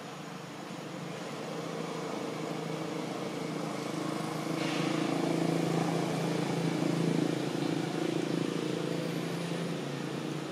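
Low engine hum of a passing motor vehicle, growing louder over several seconds and then easing off.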